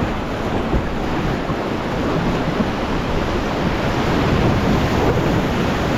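River rapids rushing and splashing around a raft as it is paddled hard, a steady loud wash of whitewater, with wind rumbling on the microphone.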